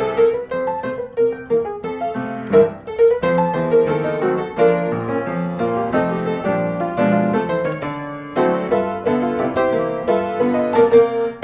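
Background piano music, a flowing run of notes with no break.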